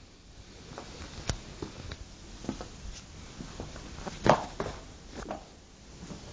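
Scattered light taps and knocks at irregular intervals, the loudest about four seconds in.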